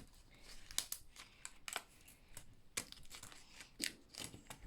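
Faint, scattered clicks and crinkles of plastic stencils being handled and taken out of their packaging.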